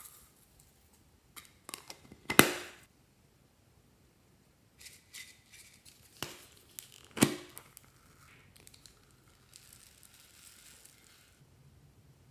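Hands handling small plastic containers and tinsel shreds: two sharp plastic clicks, about two seconds in and about seven seconds in, with light rustling and crinkling between them.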